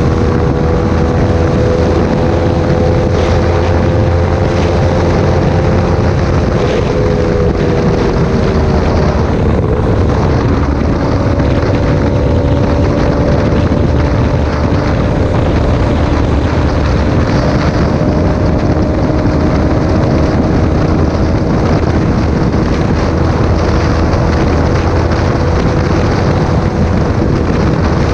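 Yamaha R3's parallel-twin engine with a full aftermarket exhaust, running at highway speed with a steady engine note. The pitch dips for a couple of seconds about seven seconds in, then holds or climbs slightly. Heavy wind rushes over the microphone.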